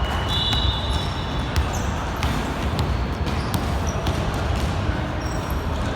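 Basketball game play: a ball bouncing and knocking on the court, with several short, high sneaker squeaks over a steady low hall rumble.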